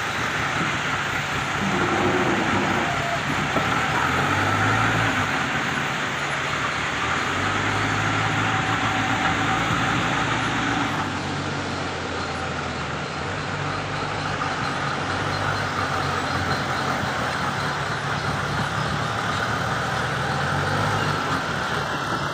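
JCB 2DX backhoe loader's diesel engine running and revving up and down in surges as it works the loader arm and drives, with a broad hiss over it that eases off about eleven seconds in.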